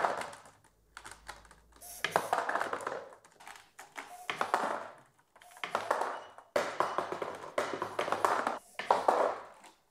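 3D-printed marble sorter running slowly: bursts of clicking and rattling about every second or so as the stepper-driven plastic chain steps marbles along and a servo arm flicks the rejected marbles out of the line.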